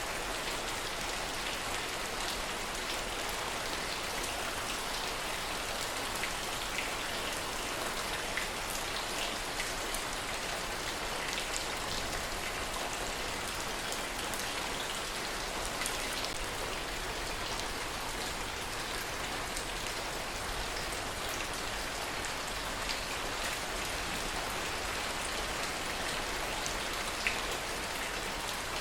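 Steady heavy rain falling, an even hiss with many small sharp drop ticks scattered through it.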